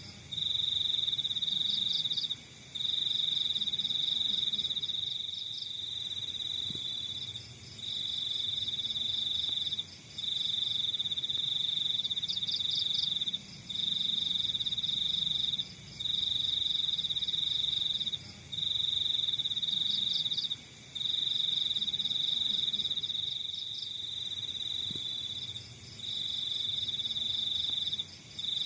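Crickets trilling in long, even, high-pitched trills of about two seconds each, separated by brief pauses. A fainter, higher chirping in quick pulses comes and goes above them.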